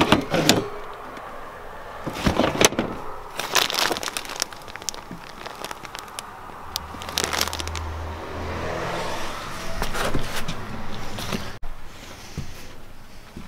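Irregular rustling, crinkling and knocking of cardboard boxes, plastic bins and bags being handled and pushed aside while rummaging through clutter.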